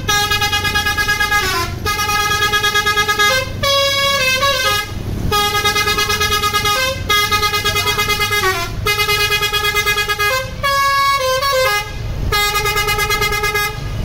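Tour bus telolet basuri horn playing a tune: a run of held, rapidly pulsing horn notes with glides between pitches, in short phrases broken by brief pauses.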